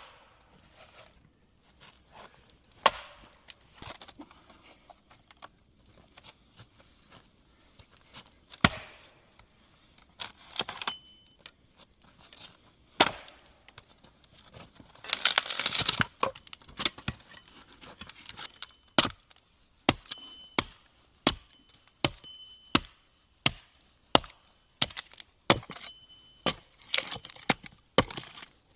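Wood being chopped with sharp, separate blows. They fall unevenly at first and settle into a steady rhythm of about one a second in the second half. A brief, noisy rustle comes about halfway through.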